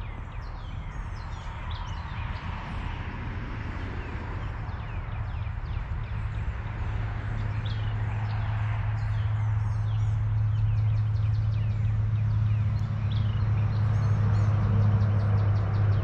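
Songbirds chirping and singing throughout, while a low, steady engine drone grows gradually louder through the second half.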